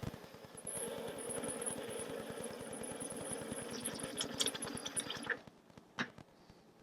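De'Longhi EC155M steam wand running in milk, a steady hiss with a rapid pulsing underneath, which stops about five seconds in; a single click follows.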